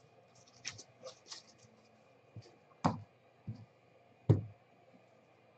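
Trading cards being flipped through by hand, with light clicks of card against card, then sharper knocks about three and four seconds in as cards are set down on the tabletop.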